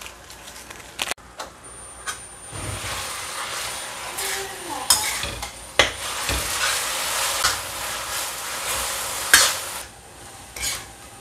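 Beef slices sizzling as they are stir-fried in a stainless steel wok, a metal spatula scraping and knocking against the pan. The sizzle picks up about two seconds in and eases off near the end, with the sharpest knock a little after nine seconds.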